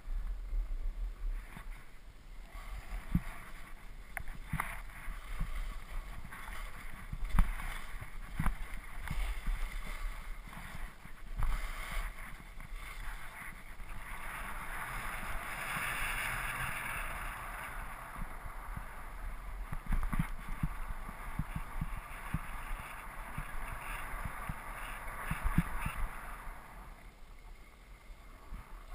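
Skis hissing and scraping over packed snow on a downhill run, with scattered knocks and low thumps as they ride over bumps. The hiss is loudest around the middle and drops off near the end.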